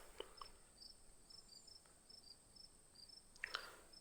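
Near silence with faint crickets chirping, a few chirps a second, over a faint steady high whine.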